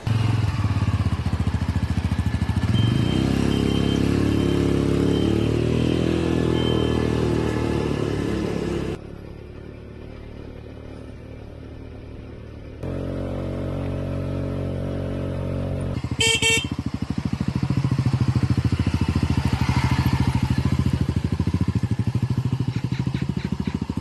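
Engine of a small red Jiming quad bike (ATV) pulling away and running as it is ridden, rising in pitch over the first several seconds, with a quieter stretch in the middle. A short horn beep comes about two-thirds of the way through.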